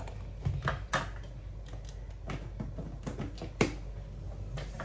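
A black kitchen ladle knocking and clicking against a stainless steel pot of thick soup as it is stirred and set to rest in the pot: a handful of separate knocks, the loudest about three and a half seconds in, over a low steady hum.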